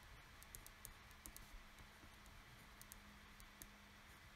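Near silence with faint, irregular ticks and scratches of a pen writing on paper.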